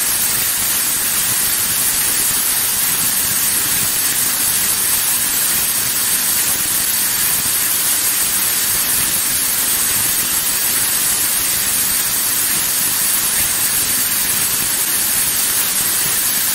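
Automatic trouser-clip rubber pad assembling machine running: a steady hiss with no distinct strokes or clicks standing out.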